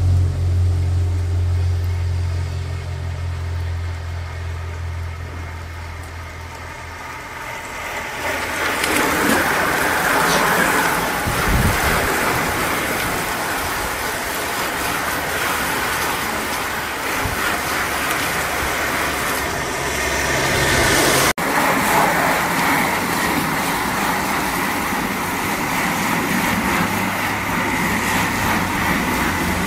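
Motor vehicles on a wet road. A low engine hum comes first; from about a quarter of the way in, a steady hiss of tyres on wet tarmac mixes with engine noise. There is a brief dropout about two-thirds through.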